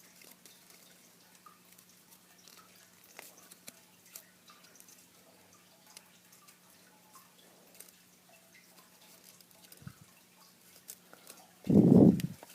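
Faint, scattered light ticks and crinkles of paper being handled and folded by hand, over a faint steady low hum, with one short, loud low thud near the end.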